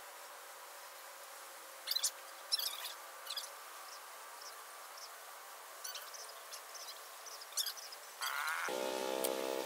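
Faint outdoor ambience: a low steady hum with a few short, high chirps scattered through it. Near the end a louder pitched, buzzing sound begins with a rising sweep and holds steady.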